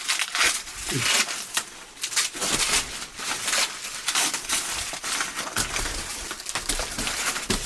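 Dry corn leaves and stalks rustling and crackling as they are handled, with irregular snaps and crunches.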